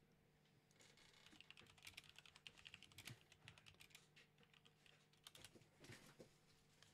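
Faint, quick, irregular clicks and taps of trading cards and booster packs being handled on a table mat. They come in runs from about a second in until near the end.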